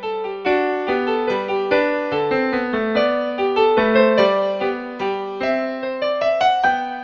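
Background piano music: a steady stream of struck notes and chords, each fading after it is played.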